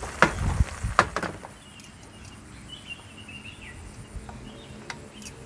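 Metal tongs clicking against a wok, two sharp knocks near the start and a few lighter clicks later, as fried chilies, shallots and garlic are lifted out onto a stone mortar. Birds chirp in the background.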